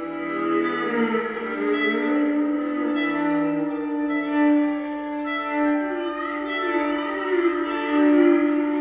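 Solo violin bowed in an ambient piece: long sustained notes layered over one another above a steady held low note.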